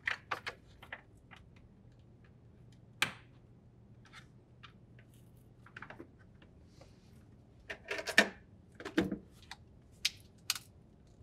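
Scattered clicks and knocks of plastic and metal as a freezer drawer slide-rail assembly is handled and pressed into place against the refrigerator's plastic freezer liner, loudest a few times in the second half.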